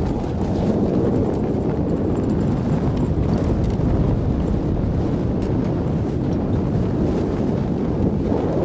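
Wind buffeting the microphone aboard a sailboat under way: a loud, steady low rumble.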